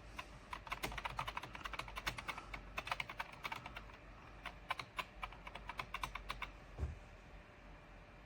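Typing on a computer keyboard: a quick, uneven run of key clicks that stops about six and a half seconds in, followed by a single low thump.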